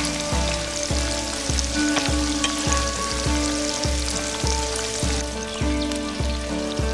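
Fish frying in hot oil in a pan, a steady sizzle, under background music with a steady beat.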